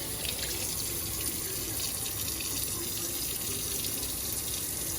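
Kitchen faucet running steadily into a sink.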